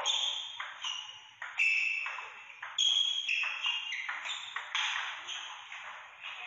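Table tennis rally: the ball struck back and forth by rubber paddles and bouncing on the table, sharp ringing hits about two a second, each fading off quickly.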